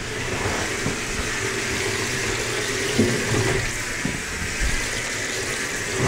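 Top-loading washing machine filling, water pouring steadily into the tub, with a single knock about three seconds in. The freshly repaired washer is filling normally again.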